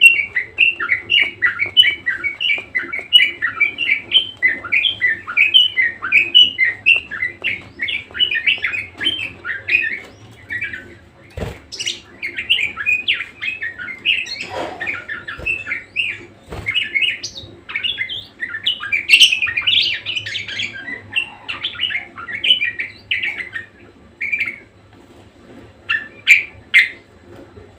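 Budgerigar warbling: a fast, chattering run of short chirps, dense for the first ten seconds and thinning out near the end. A few sharp knocks come around the middle.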